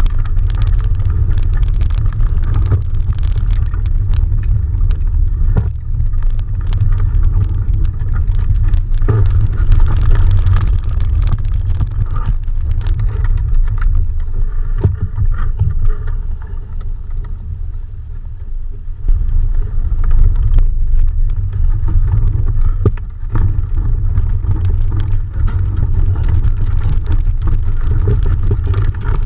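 Wind rumbling and buffeting on the microphone of a masthead camera aboard a CL16 sailing dinghy under way, with a rushing hiss of water and occasional faint clicks. The rumble eases about 16 seconds in and picks up again near 19 seconds.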